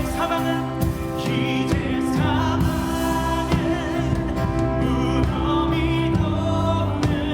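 Live worship band playing a slow contemporary worship song, with a singer's voice wavering in vibrato over sustained keyboard chords and bass.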